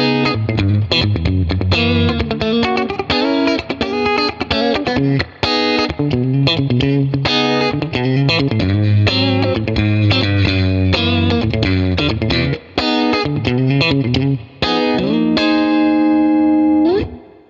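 Electric guitar played through a compressor pedal, a busy run of sustained notes over a steady low bass line. Near the end it settles on a long held note, slides upward and stops abruptly.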